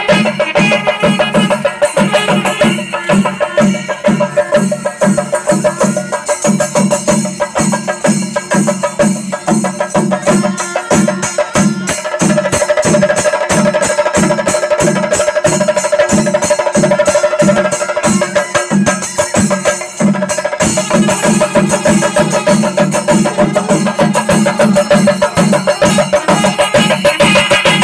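Loud chenda drum ensemble playing a fast, steady beat, with a held tone joining about halfway through.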